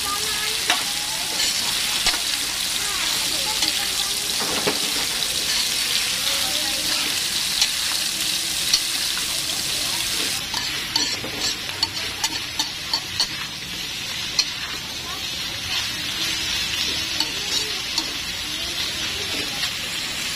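Chopped cabbage and meat sizzling in a wok while a spatula stirs and scrapes against the pan. About halfway through the sizzle turns duller and the spatula's clacks and scrapes come thick and fast.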